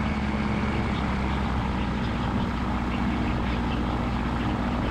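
Titanium gyroplane's piston engine running steadily at low power as the gyro taxis on grass, an even low drone.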